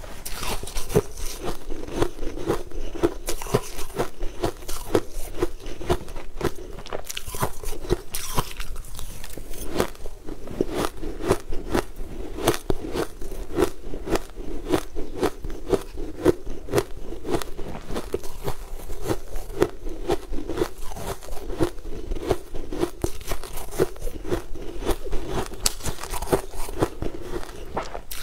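Mouthful of crushed ice being chewed: a rapid, continuous run of crisp crunches and crackles as it breaks between the teeth.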